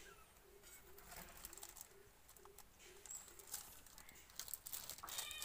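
Faint crinkling of a plastic snack packet being handled by a baby, growing busier near the end. Under it, in the first half, a faint row of short low notes about two a second.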